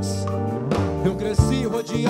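Live band music: a held keyboard chord over a steady bass note, then the beat comes in about halfway through as the intro of a rap song.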